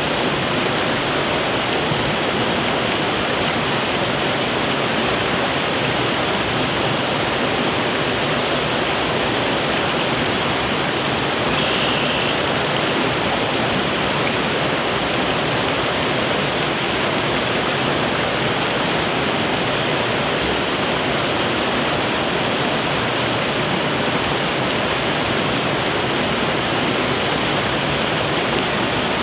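Small creek rushing steadily over a snag of logs and sticks.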